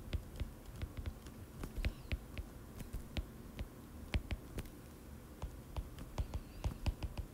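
Stylus tapping and ticking on a tablet's glass screen during handwriting: a quick, irregular series of light clicks, several a second.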